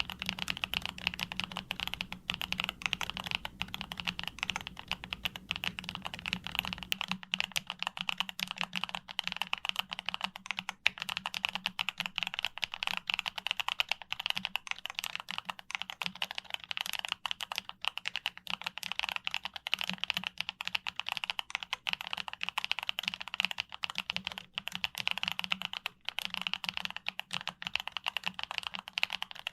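YUNZII B75 Pro mechanical keyboard being typed on quickly and continuously, a dense stream of key clicks.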